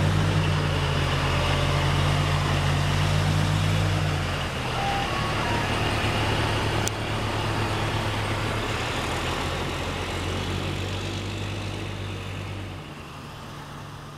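Oshkosh Striker airport crash tender's diesel engine running as the truck drives off, a steady low drone that fades away over the last few seconds as it pulls away.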